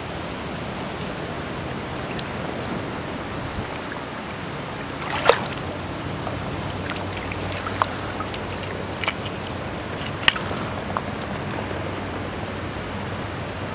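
River water running steadily over the shallows, with a few short, sharp clicks, the loudest about five seconds in and another about ten seconds in.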